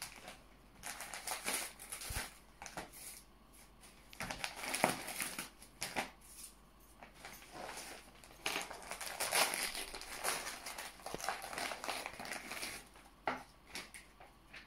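Gift-wrapping paper rustling and crinkling in irregular bursts as small wrapped parcels are handled and unwrapped.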